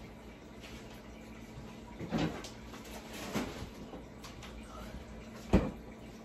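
Kitchen clatter of things being put away: two soft knocks, then one sharp, louder knock about five and a half seconds in.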